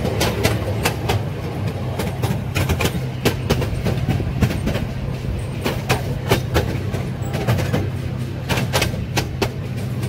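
Small amusement-park train running along its track, its wheels clacking at uneven intervals over a steady low hum.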